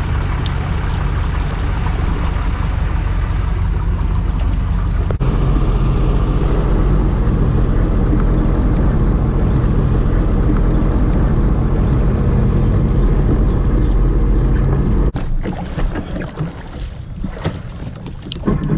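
Sea-Doo jet ski engine running steadily under way, with the rush of water. It breaks off briefly about five seconds in, and near the end the level drops and becomes uneven.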